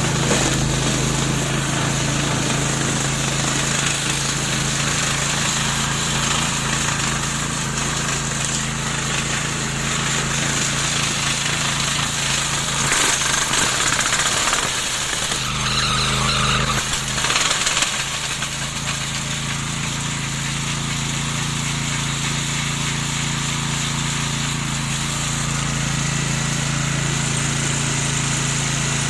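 A remote-controlled lawn mower running with a steady hum. It grows louder and rougher about 13 seconds in, then settles back a few seconds later.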